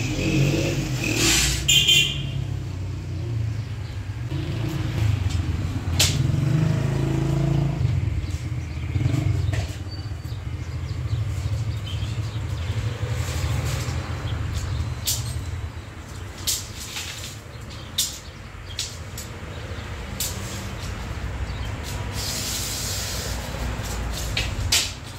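Motor vehicle engine running as a steady low rumble, with scattered sharp clicks and knocks; the rumble fades about halfway through.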